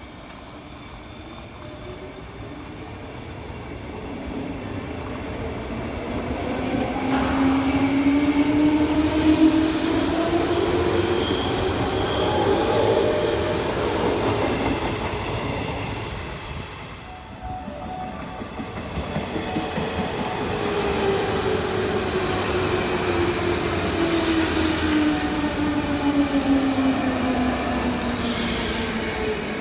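Green JR West 201-series electric train running along the platform: rail noise with a motor whine that rises in pitch as it grows loud. About halfway it dies down briefly, then a second loud run follows with the whine falling in pitch.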